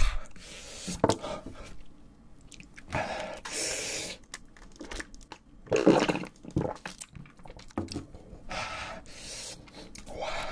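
Close-miked eating sounds: chewing and slurping a mouthful of spicy stir-fried instant noodles, with a few swallows of cola from a glass partway through. The sounds come in separate noisy bursts with short pauses between them.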